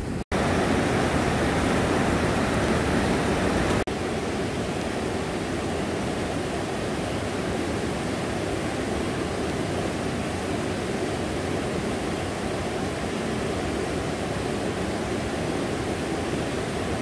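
Steady rush of falling river water from a small waterfall. It breaks off briefly about four seconds in and comes back a little quieter.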